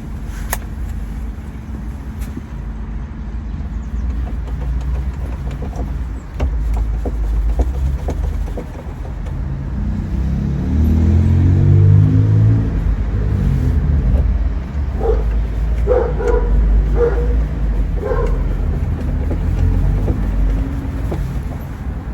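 A car or van running on the road, a steady low engine and road rumble; the engine note climbs and falls about ten to thirteen seconds in. A few short higher sounds come over it around fifteen to eighteen seconds in.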